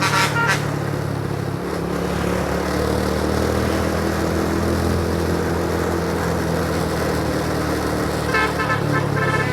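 Bus engine running with a steady low drone. A multi-tone 'telolet' air horn plays a stepping melody briefly at the start and again from about a second before the end.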